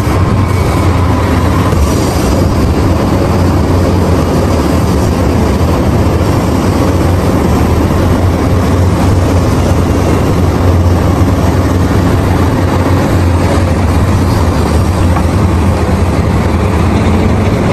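Caterpillar 6015B hydraulic mining excavator running under load as it works, a loud, steady deep drone of engine and hydraulics.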